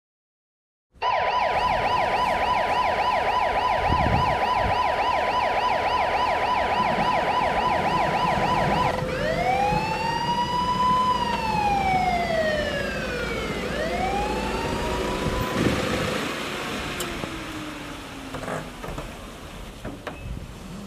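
Police car siren starting abruptly about a second in with a fast warbling yelp. About eight seconds in it switches to a slow wail that rises and falls twice, then fades out under a low vehicle rumble.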